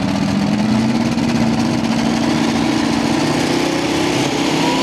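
Pulling tractor's engine running loud and steady, its pitch rising slowly as the revs build.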